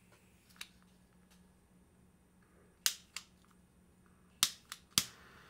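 Small handheld butane blow torch's igniter clicking, three loud clicks each followed by a softer one a moment later, as the trigger is pressed and let go. The torch is failing to light, and the owner wonders whether it is running out of gas.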